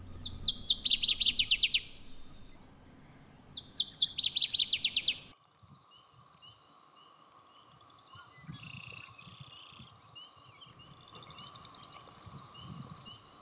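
A small songbird singing a loud, fast trill of evenly repeated high notes, twice, each lasting about a second and a half. After that come fainter, evenly spaced chirps of other birds.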